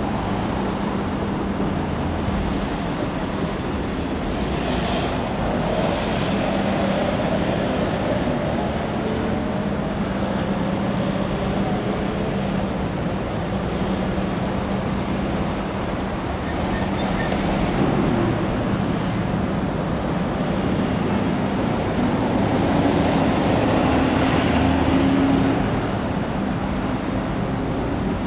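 Steady highway traffic noise from an interstate, with vehicles passing and swelling louder around five seconds in and again late on, over a steady low hum.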